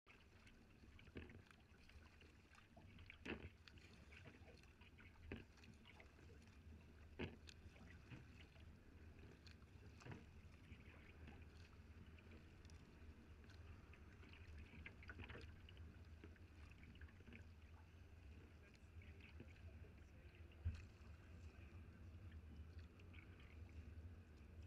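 Faint sea-kayak paddling: double-bladed paddle strokes, each blade catch a short splash or knock about every two seconds in the first half, then sparser, over a low steady rumble of water.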